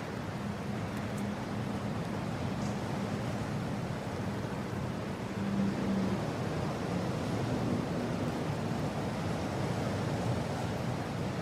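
Strong mountain wind blowing steadily, a continuous rushing hiss, with a faint low howling tone that rises and fades through the first half.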